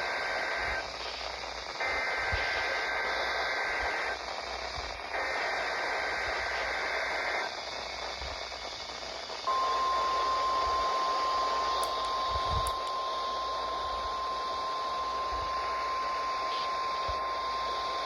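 Emergency Alert System Required Weekly Test from a weather-radio broadcast. There are three bursts of the screeching two-tone SAME digital header with a second or so of static hiss between them. Then a single steady alert tone starts about halfway through and runs on for about nine seconds.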